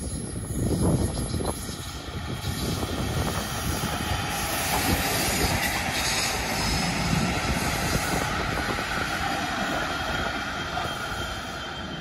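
A GBRf Class 66 diesel locomotive and its train of treatment wagons passing, the engine running and the wheels rolling on the rails, building to loudest around the middle and fading near the end. A few low thumps about a second in.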